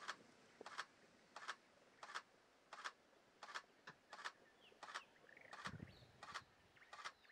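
Faint, sharp clicks repeating at an even pace, a little under one and a half a second, over a near-silent outdoor background, with a soft low bump about six seconds in.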